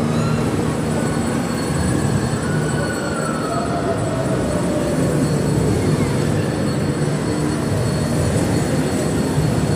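Steady low rumbling din of a large indoor amusement park hall, with faint distant voices rising and falling over it.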